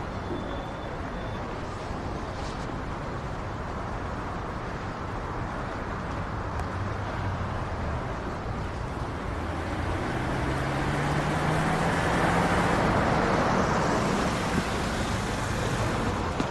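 Road traffic: a steady hum of cars that grows louder about ten seconds in as a vehicle's engine draws near, its pitch rising.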